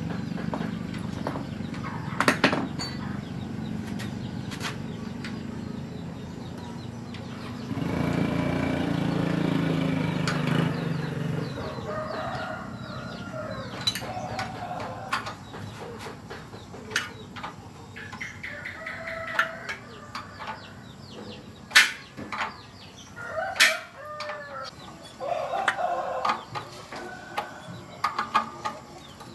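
Chickens clucking and a rooster crowing, heard as short pitched calls through the second half, over sharp metallic clinks of hand tools on the motorcycle's rear wheel and chain guard. A low engine-like rumble runs through the first part, swells, then fades.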